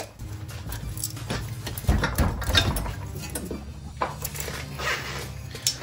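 Scattered metal clicks and knocks as the front hub and brake caliper assembly is handled and eased off the drive axle.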